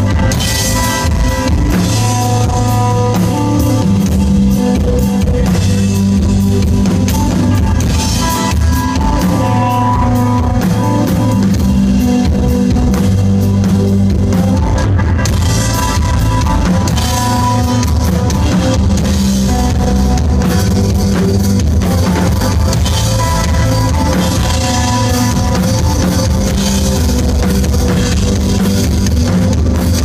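Live instrumental rock band playing loudly: electric guitar holding long notes over bass guitar and a drum kit with cymbals.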